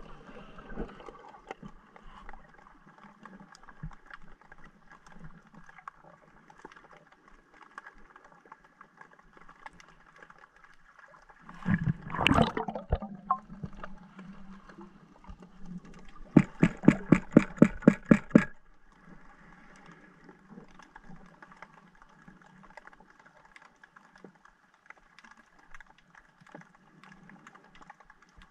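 Underwater ambience picked up by a diver's camera: a low steady hum and faint hiss, a louder swish a little before the middle, and a run of rapid, even clicks, about ten a second, for two seconds past the middle.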